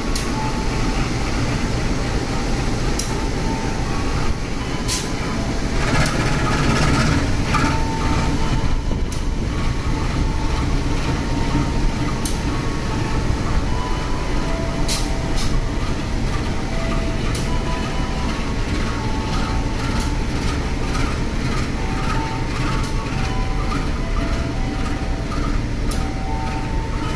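Locomotive-hauled passenger coaches of a departing local train rolling slowly past, with a steady low rumble and irregular sharp clicks and knocks from the wheels on the track.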